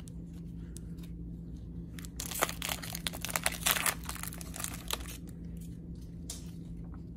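Foil NBA Hoops trading-card pack wrapper being torn open and crinkled by hand as the cards are pulled out. The crinkling is loudest and densest between about two and four seconds in.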